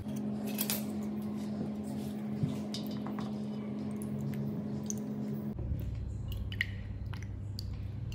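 Fingers handling a thin aluminium-foil toy pop-pop boat and a small plastic part: light crinkles and scattered small clicks over a steady low hum. Near the end, a little water splashes as the boat is set into a tray of water.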